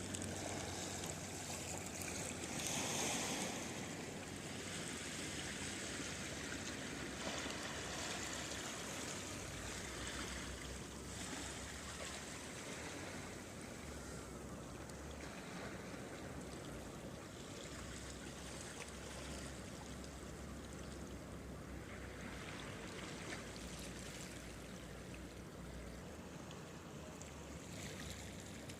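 Sea water washing among shoreline rocks and seaweed: a steady wash of surf, with a louder swell about three seconds in.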